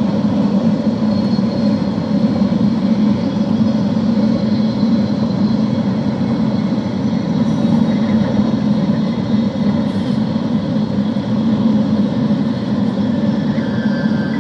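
Passenger train running at speed, heard from inside the carriage: a loud, steady running rumble.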